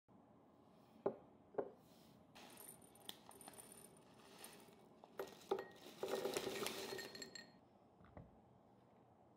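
Crushed almonds poured from a plastic bag, pattering and clinking into a small ceramic dish. A plastic bag crinkles before it, and a few sharp knocks come from small kitchenware being set down on the counter.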